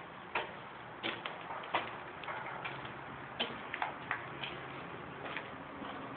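Footsteps on a gritty, sand-strewn concrete floor: irregular sharp clicks and scuffs, about one or two a second, over a steady hiss.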